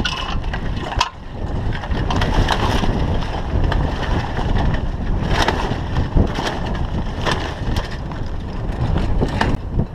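Wind buffeting the microphone, with the jib's sailcloth flapping and rustling as it is lowered down the forestay and bundled by hand. Several sharp clicks and knocks come through the wind noise.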